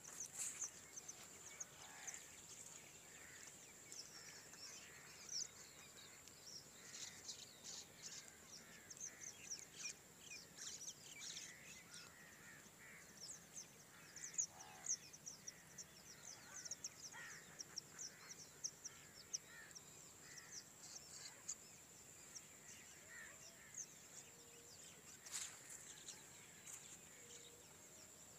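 Faint chorus of many small birds chirping: quick short high calls coming thick and fast, over a steady high-pitched whine.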